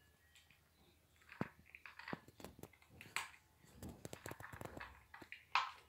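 Cat eating from the plastic tray of a PetSafe automatic feeder: irregular crunching of chewing, with small clicks, starting about a second in.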